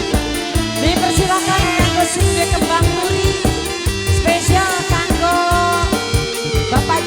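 Band music with a steady drum beat and a melody line that slides in pitch above it.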